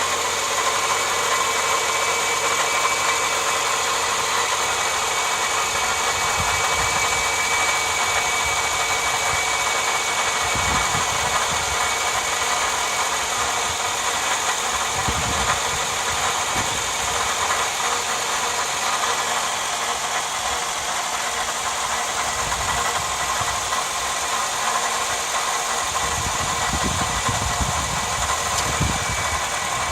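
Toyota Alphard (10 series) engine running at a steady idle, with a steady whine from the belt drive: the noise of a failed V-belt tensioner. Low rumbles come and go a few times.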